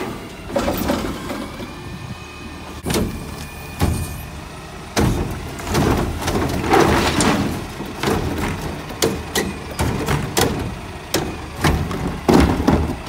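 Front-load garbage truck's Curotto Can automated arm lifting a wheeled garbage cart and tipping it into the can, over the low rumble of the truck's diesel engine. A string of sharp bangs and knocks comes from the cart being tipped, shaken and set back down, with a heavier stretch of clatter about halfway through as the contents fall out.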